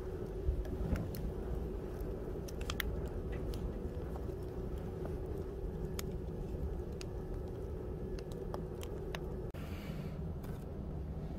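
Split firewood burning in a steel barrel, crackling with irregular sharp pops and snaps over a low steady rumble.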